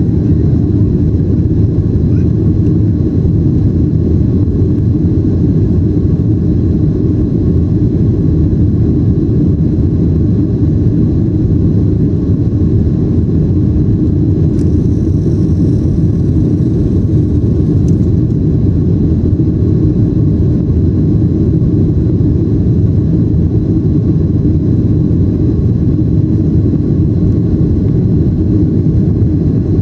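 Steady, loud low drone of engine and airflow noise heard inside an airliner cabin as the plane climbs after takeoff.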